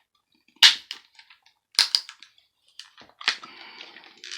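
Casing of a heart-monitor transmitter cracking as it is forced apart: one sharp crack about half a second in, two more close together near two seconds, and another just past three seconds, followed by scraping and rattling.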